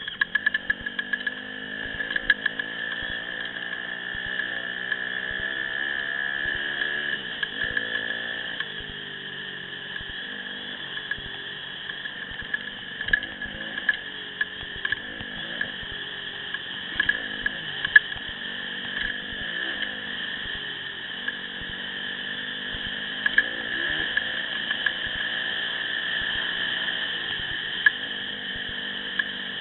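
Yamaha WR250F dirt bike's single-cylinder four-stroke engine heard from on the bike, its pitch rising and falling over and over as the rider opens and closes the throttle along a rough trail. A steady high whine runs under it, and frequent sharp knocks come as the bike jolts over the ruts.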